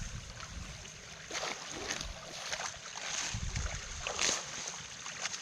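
Water splashing and sloshing, with several short splashes about half a second to a second apart over a low rumble.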